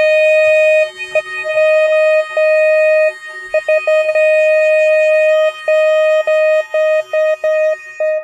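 Saxophone holding one long, loud note, heard through a video call: the tone keeps breaking off for moments and dipping briefly to a lower pitch, then stops near the end.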